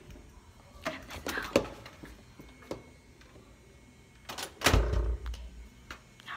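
A few light clicks and knocks, then a door swinging shut with a heavy thud about four and a half seconds in.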